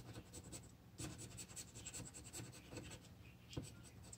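Faint, quick scraping strokes as the coating is scratched off a scratch-off lottery ticket, densest from about a second in, with one sharper tick near the end.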